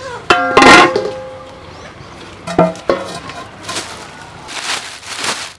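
A large metal cooking pot clanging as it is handled: a loud ringing clang about a second in and a shorter clank near halfway, then softer rustling.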